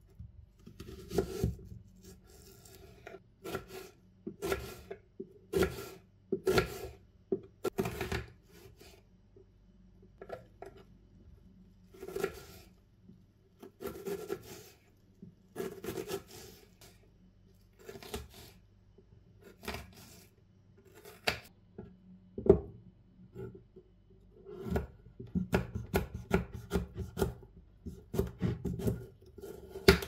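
Kitchen knife cutting an onion on a wooden cutting board: separate slicing cuts, each ending in a knock of the blade on the board, a second or two apart. About 25 seconds in comes a quick run of chops as the onion is diced.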